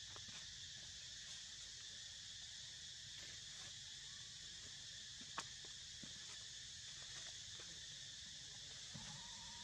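Faint, steady chorus of insects, crickets or cicadas, a high constant hiss, with one sharp click about five seconds in.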